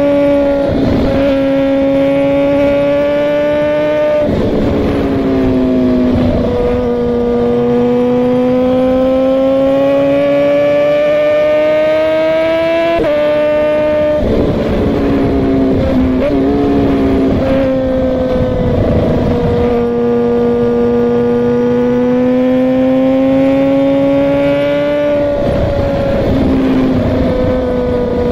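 Suzuki GSX-R 1000 inline-four engine running at a steady cruise. Its note rises and falls slowly over long stretches, with several abrupt steps in pitch along the way.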